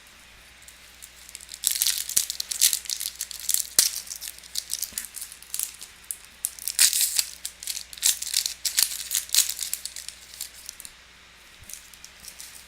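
Crinkling and rustling of a foil trading-card pack wrapper being handled and torn open, in quick irregular crackles from about two seconds in until about ten seconds in.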